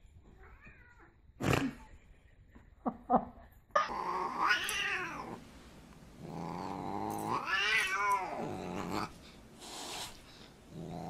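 A few short sharp sounds in the first seconds, then a Siamese cat yowling at a dog: two long, wavering caterwauls, the second lasting about three seconds.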